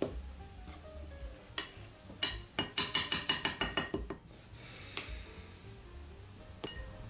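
Metal wire whisk beating batter in a glass bowl, clinking rapidly against the glass at about seven strokes a second for about two seconds, from roughly two seconds in, with a few single taps before and after.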